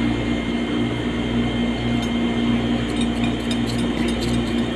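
Steady electric hum of a running household appliance, with a few faint light clicks in the second half.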